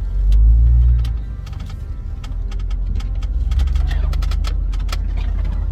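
Jeep Wrangler's engine running with a low rumble inside the cab while crawling over rough trail, swelling louder in the first second, with many sharp knocks and rattles from the body and suspension.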